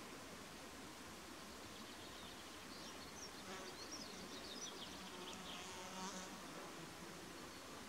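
Faint outdoor quiet with an insect buzzing and a few high chirps about halfway through.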